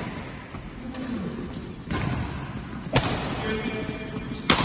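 Badminton rally: rackets striking a shuttlecock, four sharp knocks spaced a second or more apart, with players' footfalls thudding on a wooden sports-hall floor, echoing in the hall.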